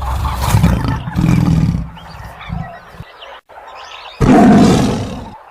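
Tiger roar sound effect: a long, rough roar over the first two seconds, then a second roar that starts suddenly about four seconds in and fades away.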